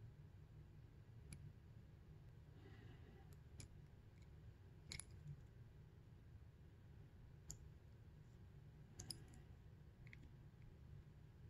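Near silence with a handful of faint, scattered clicks: a small metal pick tapping and scraping against a throttle tube's metal end plug while heat-shrink tubing is worked onto it.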